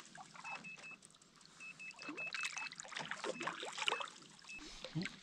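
Fish finder beeping: short high electronic beeps in quick runs, three and then six, followed by a few single beeps. Under them, small splashes and water lapping beside an aluminium boat.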